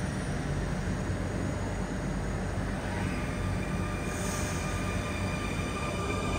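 NS Sprinter New Generation electric multiple unit moving slowly along the platform: a steady low hum and rumble of running gear, with a steady electric whine joining about halfway through.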